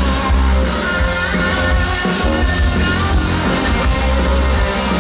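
Rock band playing live: electric guitar over loud, steady bass.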